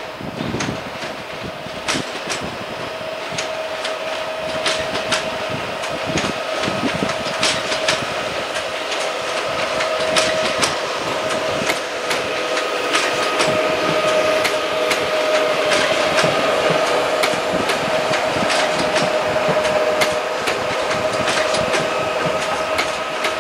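PESA Dart (ED161) electric multiple unit rolling through station points: its wheels click and clatter irregularly over rail joints and switches, over a steady electric whine that grows slowly louder as the train passes.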